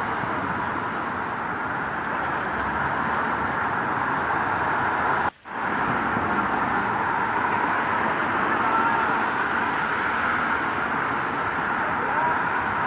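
Steady rain falling with road traffic passing, a continuous even hiss. About five seconds in, the sound cuts out for a split second, then resumes.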